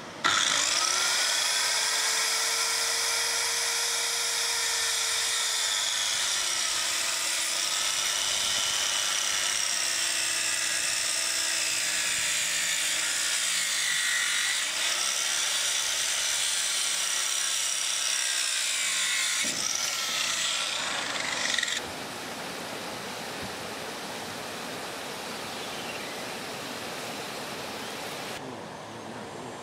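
A power tool starts up abruptly and runs at a steady pitch, which later dips and wavers as the tool is worked. It runs for about twenty seconds and then cuts off, followed by a couple of seconds of rushing noise.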